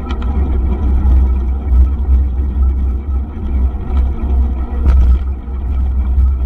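Wind buffeting and rumble on the microphone of an action camera riding on a mountain bike over a dirt trail, with the bike rattling and a couple of sharp knocks from bumps, one just after the start and one about five seconds in.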